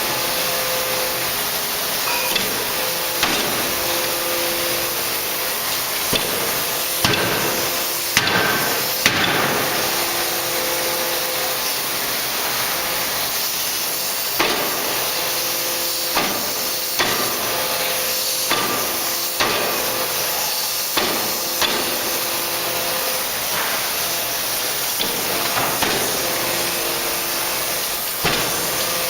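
C86 75 kJ (3-tonne) die forging hammer striking blow after blow at uneven intervals, about fifteen sharp impacts, over a steady loud hiss and whine of the running machinery.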